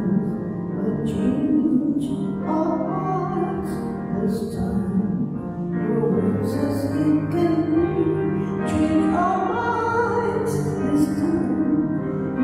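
A communion hymn sung by a solo voice over sustained keyboard accompaniment, the melody moving slowly over held chords.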